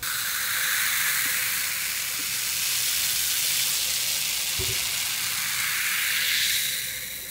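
Carbonated cola fizzing hard as it is poured into a glass and its foam head crackles, a steady hissing fizz that fades near the end. A soft knock comes about halfway through.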